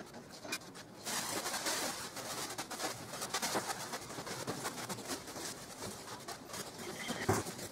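Aluminium foil facing of a glass-wool insulation sheet crinkling and rustling as it is smoothed and pressed flat by hand, starting about a second in.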